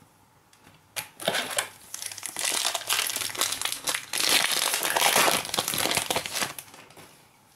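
Foil wrapper of a Prizm basketball card pack crinkling as it is handled and opened. It starts with a sharp click about a second in and crackles for several seconds before stopping near the end.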